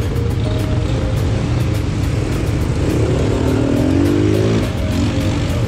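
ATV engines running with a steady low drone; about three seconds in, one engine revs up with a rising pitch for a second or so, then settles.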